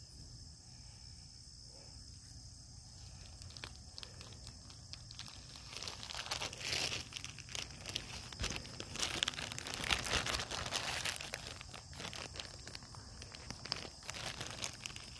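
Crinkly rustling and crackling, louder from about six seconds in, over a steady high-pitched drone.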